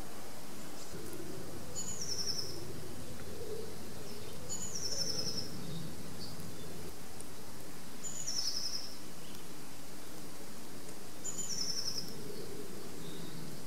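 A songbird repeating a short, high phrase that falls in pitch, five times, about every three seconds, with a few fainter calls between. Under it runs a steady low rushing background.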